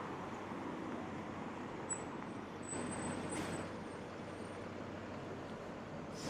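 City street traffic noise: a steady hum of passing cars. About two to three seconds in it swells, with a brief high squeal and then a short hiss.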